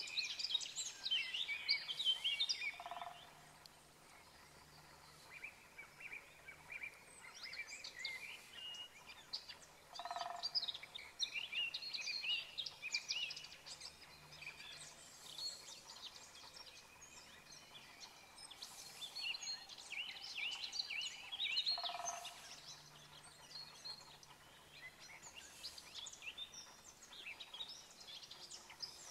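Small birds chirping and singing in quick high trills, busier at times and sparser in between, with a short lower call that comes back a few times.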